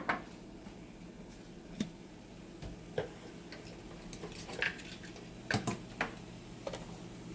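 Irregular light clicks and taps of a kitchen utensil against a bowl as a sauce is mixed, about eight sharp ticks spread over several seconds, the loudest right at the start.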